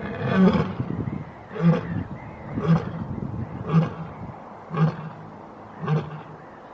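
A lioness roaring: a series of six short, deep grunts, about one a second, which is the grunting run of a lion's roar.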